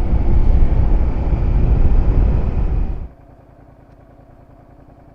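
Suzuki SV650S V-twin motorcycle under way, its engine mixed with loud wind and road noise on a helmet camera. About three seconds in, the noise cuts off abruptly, leaving the quieter, steady beat of the engine at low revs.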